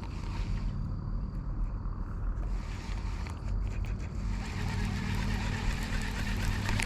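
Steady low hum of a distant engine, with faint background noise.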